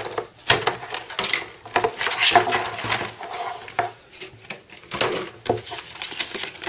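Clear plastic packaging and a card tray being handled as a computer mouse is unpacked: a string of irregular plastic clicks, rattles and crackles.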